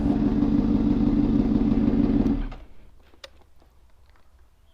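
Motorcycle engine running at a steady, held pitch, then dropping away about two and a half seconds in, leaving only a few faint clicks.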